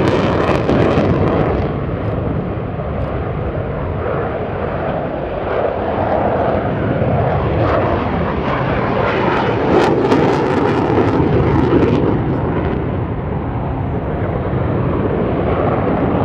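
Saab JAS 39 Gripen C fighter jets' RM12 turbofan engines roaring overhead as the pair flies a low display pass. The sound is a continuous deep rumble that swells and eases slowly, losing its upper hiss about a second and a half in.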